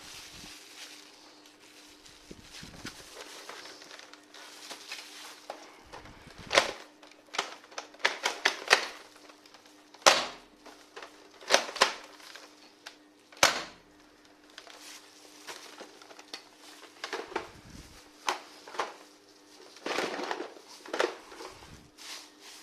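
Plastic-and-metal toy gun mechanisms being worked by hand: irregular sharp clicks and clacks, some in quick runs of several, the loudest in the middle, over a faint steady hum.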